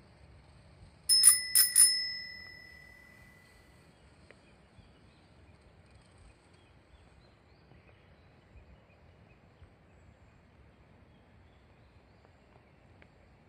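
A bicycle bell rung three times in quick succession about a second in, its ring dying away over about two seconds.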